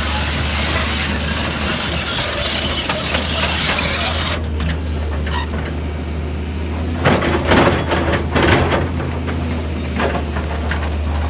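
Volvo EC210B LC crawler excavator's diesel engine running steadily while its bucket digs and scrapes into broken rock. A rushing noise cuts off sharply about four seconds in, and a cluster of rock knocks and clatters comes in the second half, with one more knock near the end.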